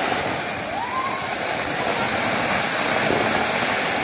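Ground fountain firework spraying a tall column of sparks with a steady hiss.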